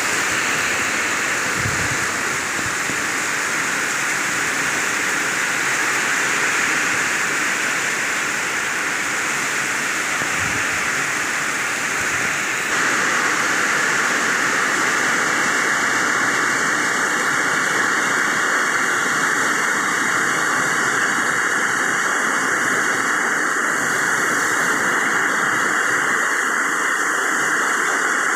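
Heavy rain falling, a loud steady hiss that steps up slightly about 13 seconds in.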